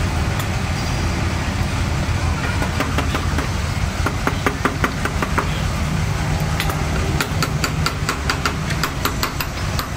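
An engine idling steadily in the background, with repeated sharp metallic clinks of steel gears and shafts knocking together as they are fitted into a tractor gearbox housing; the clinks come in two clusters, the later one quicker.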